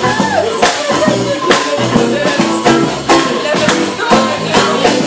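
Live band playing: strummed acoustic guitar and electric guitar over drums.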